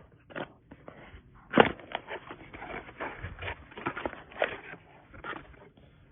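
A small cardboard product box being opened and its packaging handled: rustling and scraping with scattered small knocks, and one sharp click about one and a half seconds in.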